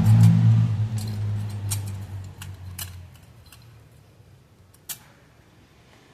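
A motor vehicle engine running steadily and fading away over about three seconds, with a few light metallic clinks of engine parts being handled as the head gasket is set on the cylinder.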